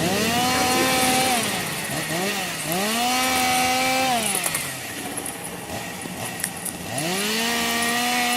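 Chainsaw being revved: it climbs to full speed and holds, drops back, is blipped twice quickly, revs up and holds again, settles to a low idle for a couple of seconds, then revs back up near the end.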